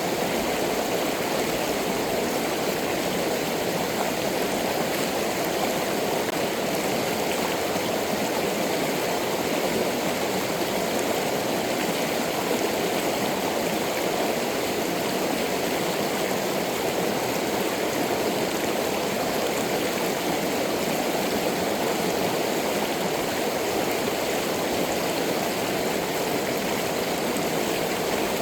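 Mountain stream water rushing steadily over rock, an even, unbroken sound with no change.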